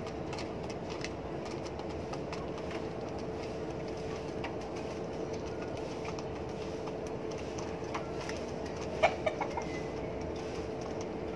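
German Beauty Homer pigeons pecking grain from a plastic feeder: scattered faint taps over a steady background hum, with a sharp knock about nine seconds in followed by two or three smaller ones.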